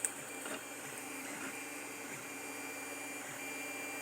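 A steady mechanical hum with a faint high whine, and two light clicks near the start.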